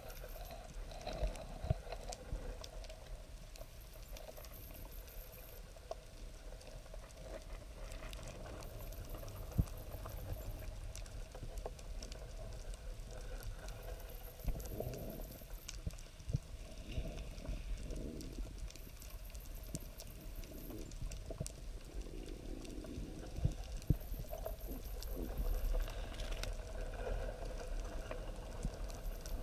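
Underwater sound picked up through a camera's waterproof housing: a low rush of moving water with many scattered sharp clicks and crackles. A faint high hiss recurs about every five seconds.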